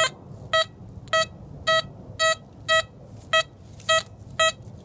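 XP Deus metal detector giving a short, high beep about twice a second, every beep at the same pitch, as the coil is swept back and forth over a buried target that reads 92, a high-conductivity signal.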